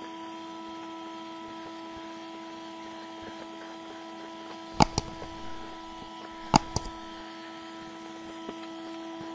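Vacuum cleaner running steadily through a hose and ballast-vacuum nozzle, sucking loose scatter off a model railway baseboard: a steady motor hum with a rush of air. Two sharp double clicks sound near the middle, about two seconds apart.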